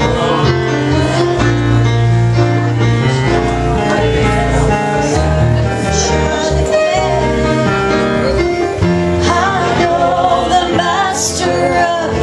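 Live gospel music with singing: held bass notes under instruments, and a singing voice that comes forward near the end.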